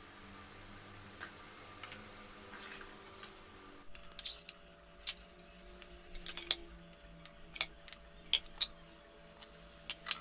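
Faint steady background hum. About four seconds in, the background changes abruptly, and a dozen or so light, irregularly spaced clicks and taps follow.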